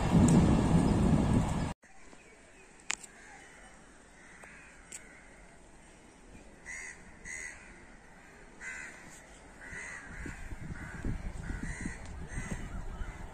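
Loud train noise cuts off abruptly about two seconds in. Then crows caw repeatedly, single calls a second or so apart, over a quiet background, while a low rumble of an approaching train builds over the last few seconds.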